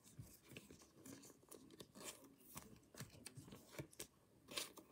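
Faint rustling and light clicks of baseball trading cards being flipped through by hand and laid onto a pile.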